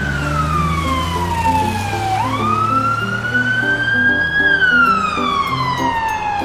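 Ambulance siren wailing, its pitch sliding slowly down, sweeping back up about two seconds in, then sliding down again, over light background music.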